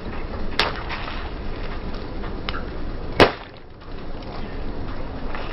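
A car tyre slowly crushing squishy stress toys and slime-filled balls, with the car's engine running low underneath. There is a sharp crack about half a second in, a few small crackles, then a loud pop a little after three seconds as a toy bursts under the tyre.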